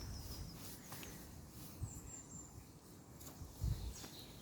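Quiet outdoor ambience with a few faint, short high bird chirps, and a soft low thump about three and a half seconds in.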